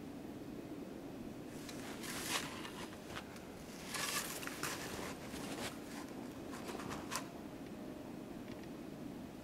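Close rustling and clicking of clothing and gear being shifted next to the microphone, in a run of sharp bursts lasting several seconds.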